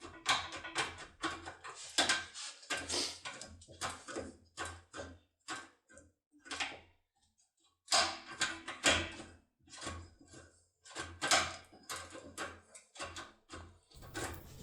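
Foil impression lockpick being worked inside a Mottura Project cylinder lock: rapid, irregular metallic clicks and scrapes, with a short pause about seven seconds in.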